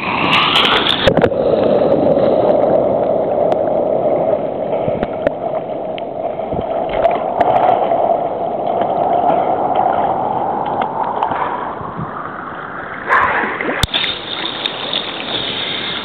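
Sea water sloshing and gurgling right against the microphone of a waterproof compact camera held at the surface among small waves. The sound is loud and muffled, with scattered small clicks and a louder splash near the end.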